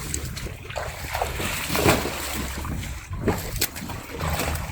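Water splashing in short, irregular bursts over a steady low rumble.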